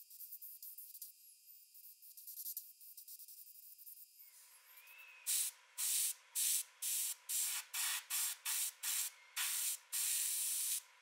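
Gravity-feed airbrush spraying paint in short bursts, about a dozen quick hisses with brief pauses between them, starting about five seconds in after a faint high hiss. One longer spray comes near the end.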